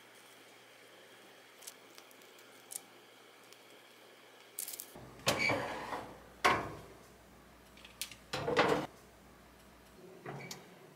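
A few quiet seconds with faint soft clicks, then a metal baking tray clattering as it goes into an oven, with the oven door clunking. There are several sharp knocks, the loudest about halfway through.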